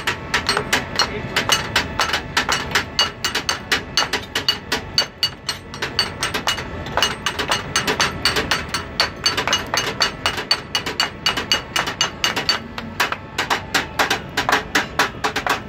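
Metal serving utensils clanged together rapidly and rhythmically in a tableside serving flourish, about five ringing strikes a second, with a brief lull about six seconds in.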